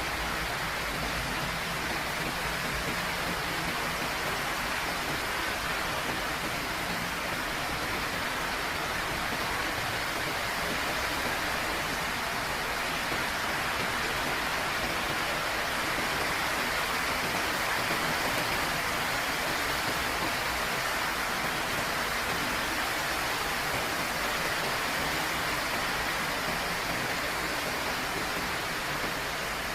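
Heavy rain falling in a steady, unbroken downpour, a constant hiss with no distinct drops or gaps.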